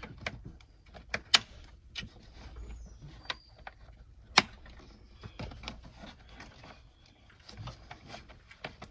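The plastic air cleaner housing of a 2008 Ford Focus is pressed down into place and its latches are snapped shut: a string of sharp plastic clicks and knocks, the loudest about a second and a half in and again about four and a half seconds in.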